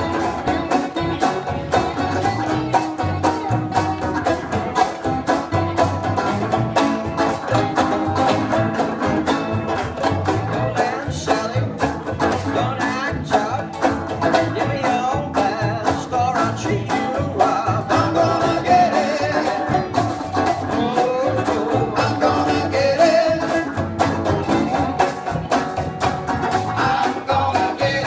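Live string band playing a bluegrass-style tune: picked banjo over strummed acoustic guitars, with upright bass and drums underneath.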